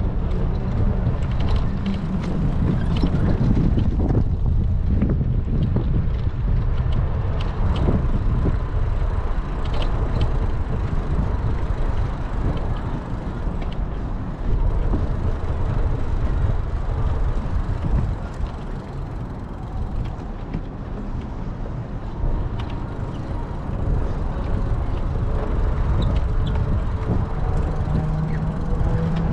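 Wind buffeting the microphone of a camera carried on a moving bicycle: a steady low rumble with scattered small clicks and rattles from the ride.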